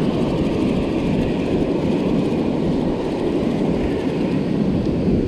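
Steady wind noise on the microphone mixed with the wash of ocean surf.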